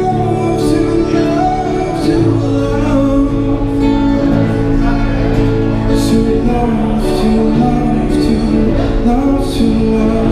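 Man singing into a microphone while strumming an amplified Yamaha acoustic guitar, played through a small Roland Cube Street EX busking amp.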